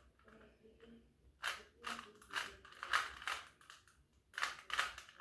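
Plastic Rubik's cube being turned quickly by hand, its layers clacking in several short runs of clicks, during a speed solve.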